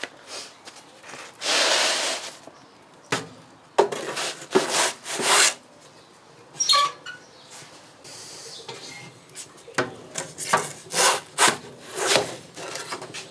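Pizza peel scraping and sliding over the oven's stone floor as the pizza is turned and drawn out: a run of short rasping scrapes, with one longer scrape about a second and a half in.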